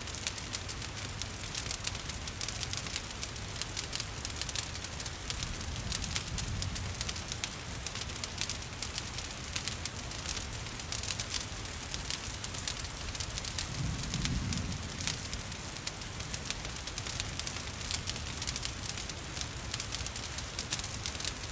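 Wood fire crackling with frequent small pops, over a steady wash of falling rain. A soft low rumble swells briefly a little past the middle.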